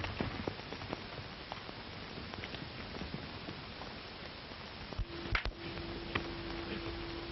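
Steady hiss of an early-1930s film soundtrack with a few faint clicks. About five seconds in, a couple of sharp thuds from two men scuffling, with a faint steady hum.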